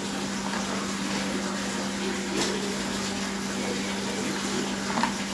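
Steady hiss with a low hum, and two light taps, one about two and a half seconds in and one near the end: a spoon against a mixer-grinder jar as soaked almond gum is put into it.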